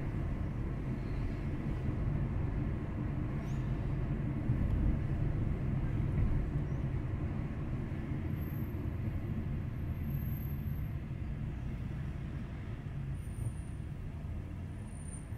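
Car driving through city streets, heard from inside the cabin: a steady low engine and road rumble.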